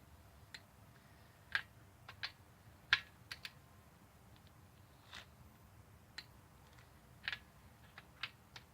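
Irregular sharp clicks and taps of hand tools on metal, about a dozen spread over several seconds, while the cylinder head bolts of a Chevy 3.1 V6 are being tightened down.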